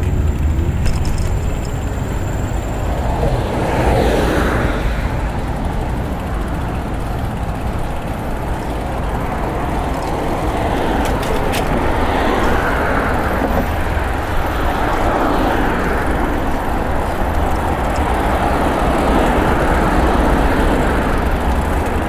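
Road traffic passing, several vehicles swelling and fading one after another over a steady low rumble.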